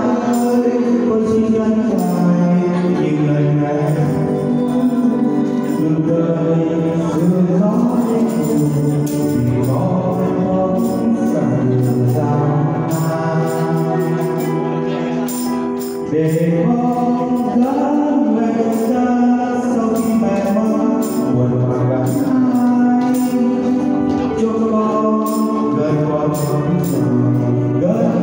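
A man and a woman singing a duet through handheld microphones over backing music with a steady percussion beat.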